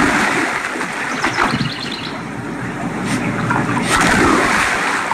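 Water splashing in a swimming pool, a continuous noisy wash with a few sharper splashes.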